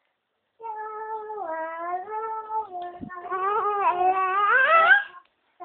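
A young child's voice drawn out in one long, unbroken wail, holding a fairly level pitch, then rising and getting louder near the end before cutting off. A brief knock of the phone being handled comes about halfway through.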